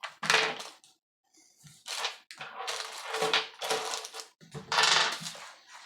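Small zipper pulls and a plastic kit case being handled: several short bursts of clicking and rattling.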